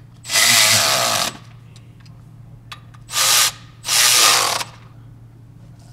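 Cordless electric ratchet running in three bursts: one of about a second, then two shorter ones close together. It is driving the clutch pressure plate bolts down until they stop.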